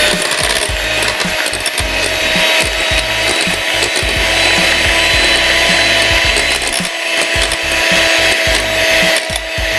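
Electric hand mixer running steadily, its beaters whisking melted chocolate into a whipped egg-and-sugar batter in a glass bowl.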